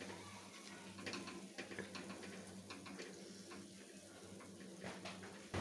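Dal vadas deep-frying in oil in a steel kadhai: faint, irregular crackling of small pops over a low steady hum.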